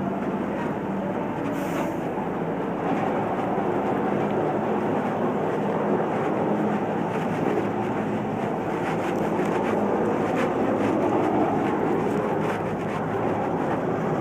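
Steady drone of heavy machinery running, slightly louder from about three seconds in.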